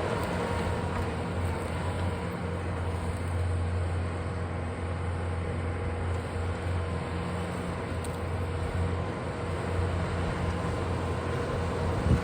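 Bobcat skid steer's engine running steadily, a continuous low drone with no change in speed.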